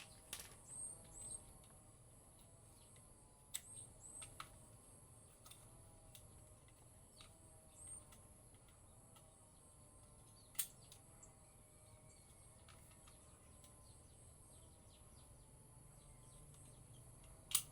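Near silence broken by scattered light clicks and taps of small metal parts being handled while an angle grinder is reassembled; the sharpest click comes about ten seconds in, another near the end. Faint high bird chirps sound now and then.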